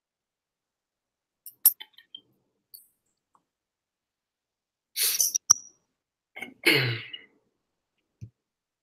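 A few soft computer-mouse clicks, then a person's two short breathy noises, the second with some voice in it, and a sharp click between them; dead silence around these sounds.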